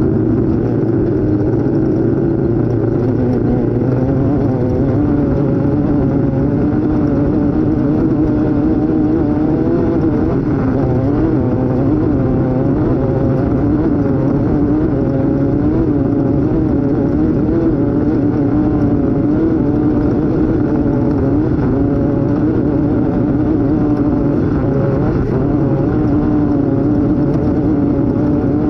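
Off-road race vehicle's engine running hard under load, its pitch continually rising and falling with the throttle.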